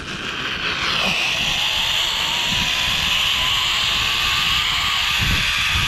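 Zipline trolley running along the steel cable: a steady whirring rush that builds over the first second and then holds, with a faint whine slowly rising in pitch.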